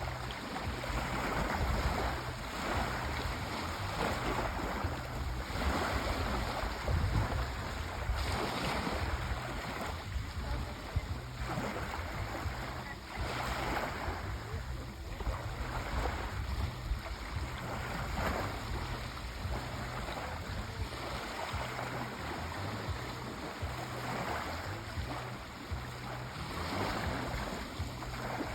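Sea waves washing in: a continuous rush of surf that swells and eases every couple of seconds.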